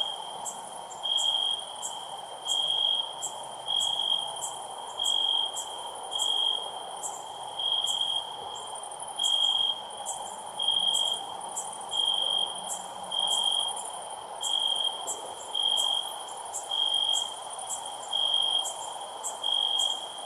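Cricket chirping in even, half-second chirps at one pitch, about one every second and a bit. A faster, higher ticking of insects runs behind over a steady background hiss.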